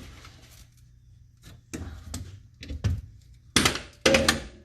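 Knocks and clunks of metal parts as a rear shock absorber is worked onto its upper mounting stud, scattered at first, with two loud knocks near the end.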